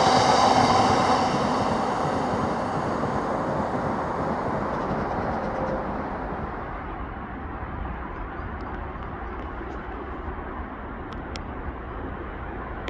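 Class 56 diesel locomotive's Ruston V16 engine working under power, with a high turbocharger whine over its rumble, fading steadily as the locomotive pulls away. From about halfway only a low, distant rumble remains.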